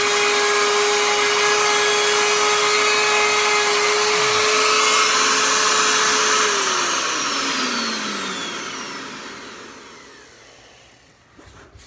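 Corded trim router running steadily at full speed with a high whine, then switched off about six and a half seconds in and winding down, its pitch falling as it fades out over a few seconds. A couple of light knocks near the end.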